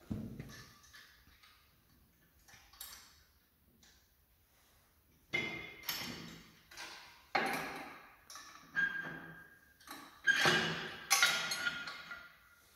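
Steel hitch parts clanking and clinking against the winch frame as a towing hitch is handled for fitting: faint ticks at first, then about ten sharp metal knocks from about five seconds in, each ringing briefly, the loudest near the end.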